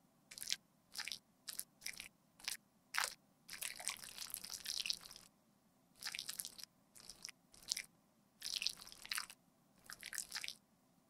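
Metal makeup spatula scraping and pressing thick cream makeup in a palette pan, making a series of short, crisp, sticky crackles about once or twice a second, with a few longer scrapes.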